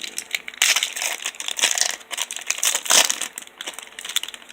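Plastic wrapper of a trading-card pack crinkling and crackling as it is torn open and handled, in irregular bursts.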